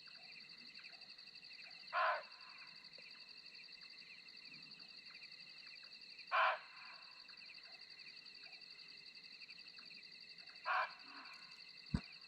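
An unidentified wild animal calling from the hillside at night: three short, loud calls about four seconds apart, over a steady high chirring background. A single sharp click comes near the end.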